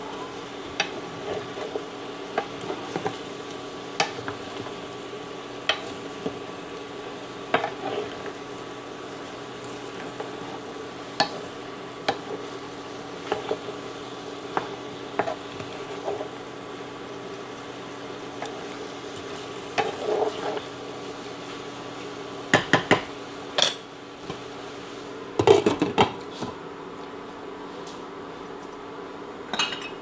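A cooking utensil stirs and scrapes through rice cakes and bok choy in a frying pan, with scattered clicks and knocks against the pan over a steady hum. Louder bursts of clatter come about two thirds of the way in and again a few seconds later. Just before the end a glass lid clanks onto the pan.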